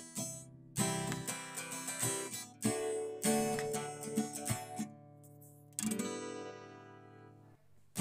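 Background music: an acoustic guitar tune of strummed chords, the last chord, about six seconds in, left to ring and fade.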